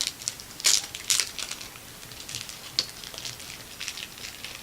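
Plastic packaging crinkling and rustling as packs of trading cards are handled, in irregular bursts. The loudest crinkles come in the first second or so, with lighter rustles after.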